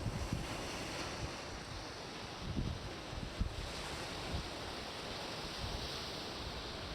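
Ocean surf washing steadily on the beach, with wind buffeting the microphone in irregular low gusts.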